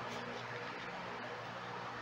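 Steady background hiss over a low, even hum, with no distinct event standing out.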